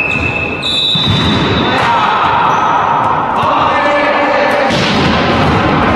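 Volleyball rally on a sports hall court: sneakers squeaking on the floor in several high squeals up to about a second long, a few sharp hits of the ball, and players' shouts.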